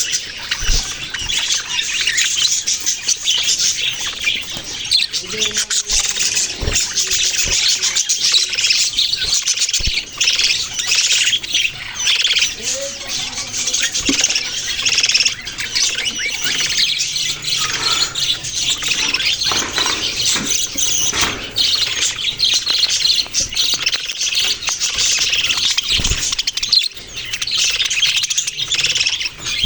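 A group of small pet parrots chirping and squawking non-stop, many short high calls overlapping one another.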